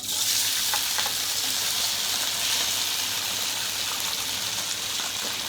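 An ingredient goes into hot oil in a pan, setting off a sudden loud sizzle that keeps going steadily, with a few light clicks from the pan.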